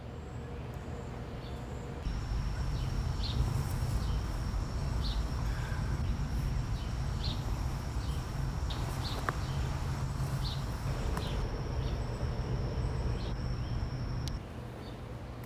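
Outdoor ambience: a bird giving short chirps about once a second over a steady high whine and a low rumble. It all starts abruptly about two seconds in and cuts off near the end.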